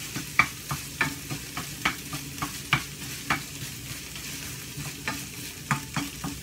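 Wooden spatula scraping and knocking against a stainless steel wok, stirring a pounded herb paste frying in sizzling oil, with sharp strokes about two or three times a second.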